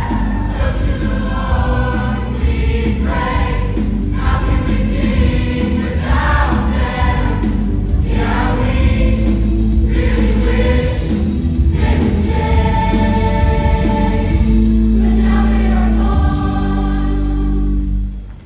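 A large mixed choir sings a gospel-style number over music with a heavy bass. The sound cuts away abruptly near the end.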